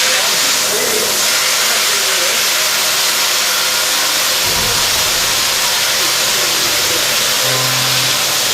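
CNC machining center running, with a loud, steady hiss that sets in just before and holds evenly throughout.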